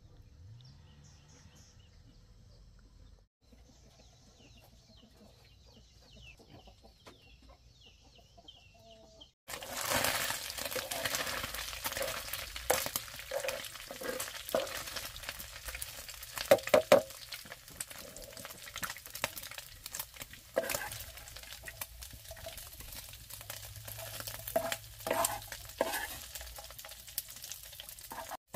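Faint bird calls at first. About nine seconds in, greens start sizzling loudly in hot oil in a wok, and a ladle stirs and scrapes against the pan with repeated knocks.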